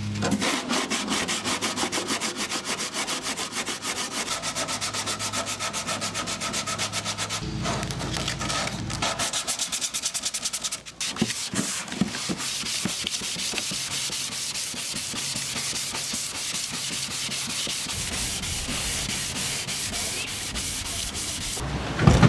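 Fiberglass body panel being hand-sanded with a sanding block: quick, even back-and-forth scraping strokes. A loud thump comes near the end.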